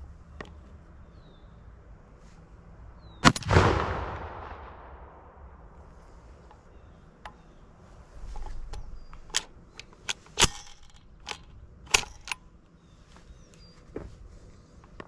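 A single loud shotgun shot about three seconds in, echoing and dying away over a second or two. Later comes a series of sharp clicks and clacks as the gun is handled and reloaded, with birds chirping faintly.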